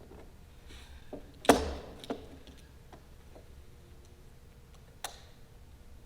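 Sharp knocks of a hand tool striking at a broken lag screw in a wooden stage floor, working it loose. There is one loud knock about a second and a half in, a lighter one just after it, and another near the end, with faint ticks between.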